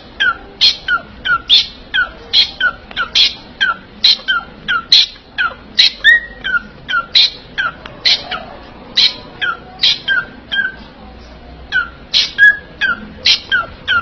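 Small pet parrots calling over and over, about two to three short calls a second, each a sharp high note that drops quickly in pitch, with a short break about eleven seconds in.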